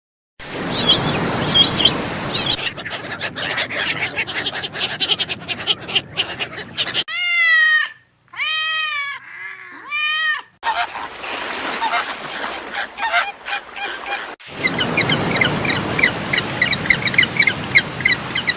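A flock of waterfowl calling, a dense stream of rapid honking and quacking calls. About halfway through come three separate drawn-out honks, each rising and falling in pitch, before the rapid chatter resumes.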